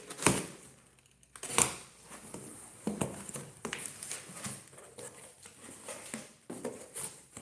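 Cardboard shipping box being opened by hand: flaps rustling and scraping as they are folded back, with a few sharp knocks of cardboard, the loudest near the start and about a second and a half in.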